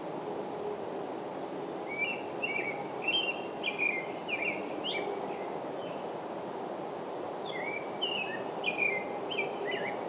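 American robin singing its territorial song: two runs of short, sing-songy rising and falling whistled phrases, 'cheerio, cheerio, cheery', with a pause between them. A steady low background noise runs beneath.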